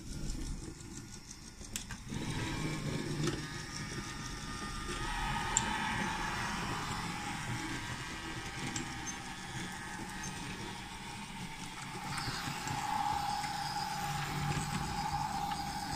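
Several battery-powered toy trains running on wooden track, their small electric motors whirring, with a steady whine that comes and goes.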